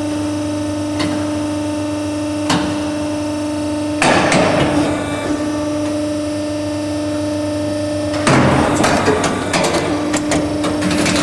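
Ormac toe-lasting machine running with a steady hum, giving single sharp clicks, then a burst of noise and clatter about four seconds in and a longer run of noise with rapid clicks near the end as its pincers grip and pull the shoe upper over the last.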